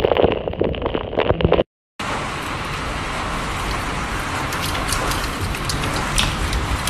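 Hailstorm: hailstones clattering on a hard surface in quick, irregular clicks, then after a brief dropout about two seconds in, a steady hiss of heavy rain with scattered sharp hail strikes.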